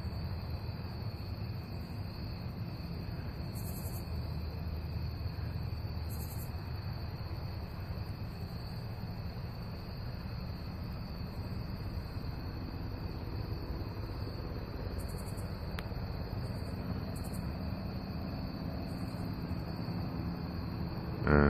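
A night chorus of crickets: a steady, continuous high trill, with short higher-pitched insect buzzes every few seconds. A low rumble lies underneath.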